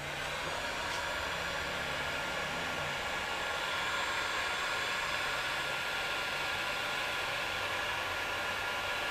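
Heat gun switched on and blowing steadily with a faint whine, shrinking glue-filled heat shrink tubing over wiring connections.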